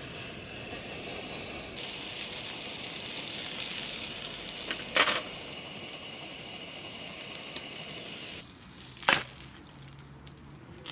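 Wood fire crackling steadily, with two loud sharp cracks about four seconds apart.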